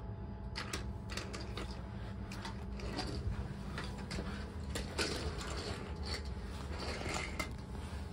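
Toy train on wooden Brio track: a small motor and gears whir steadily, with scattered clicks and knocks of wheels and wooden track pieces.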